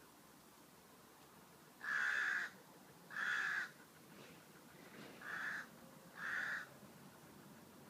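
A crow cawing four times, in two pairs of harsh calls about half a second long each.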